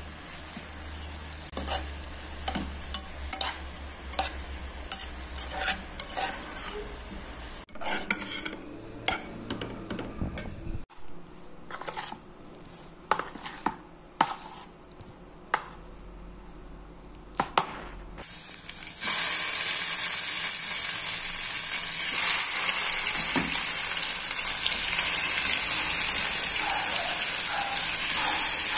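A metal spoon clicking and scraping against a pan while stirring sautéed cambuci peppers, then a utensil tapping in a bowl of seasoned raw chicken. About two-thirds of the way through, a loud, steady sizzle starts as chicken breast fillets hit hot oil in a frying pan.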